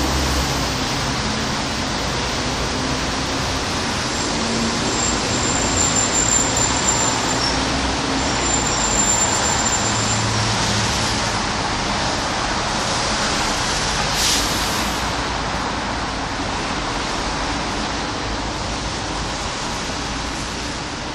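Steady rain on a wet street with road traffic: an even hiss of rain and wet tyres, with the low rumble of passing vehicles' engines coming and going. A brief sharp hiss about fourteen seconds in.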